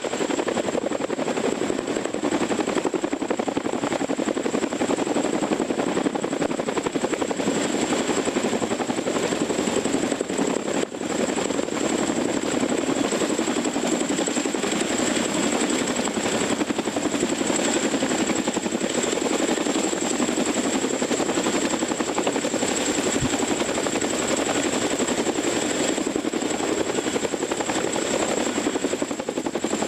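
CH-47F Chinook tandem-rotor helicopter hovering close overhead: steady rotor and turbine noise from its two Lycoming T55 turboshaft engines, with a thin high whine running through it.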